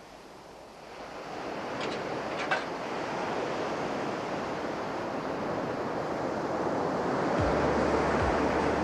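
Sea surf and wind noise, a steady wash of water that fades in about a second in and swells gradually louder.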